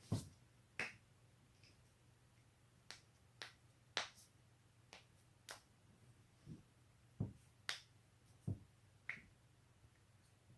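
Human joints cracking: a run of about a dozen sharp cracks and pops at irregular spacing, some deeper and thuddier than others.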